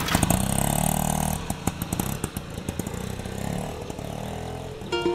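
Bajaj RE auto-rickshaw's small single-cylinder engine running and revving as the auto pulls away, then fading as it drives off. A plucked-string tune comes in at the very end.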